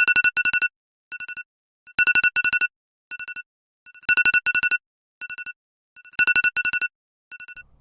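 Electronic phone ringtone: a fast trilling beep, two loud trills followed by a softer one, the pattern repeating about every two seconds.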